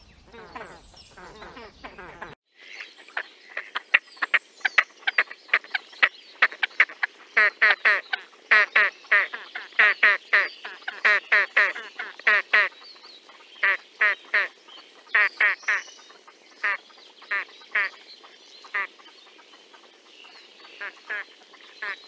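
Great crested grebes calling: a long series of short, repeated calls, several a second, coming in runs that grow sparser after the first half. A low background noise cuts off abruptly about two seconds in.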